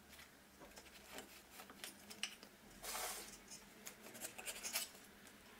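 Faint knife strokes cutting through stacked yufka (phyllo) sheets along the rim of a round baking tray, with soft papery scraping and rustling as the overhanging edges are trimmed off. A longer cut comes about three seconds in.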